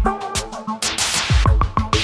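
Electronic pop song with a programmed beat: repeated deep kick drums and sweeping high hiss over synth tones.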